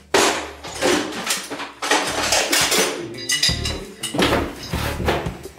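Metal tools clanking and knocking in a rapid, repeated run of clatters while a burned-out electric shower is being repaired.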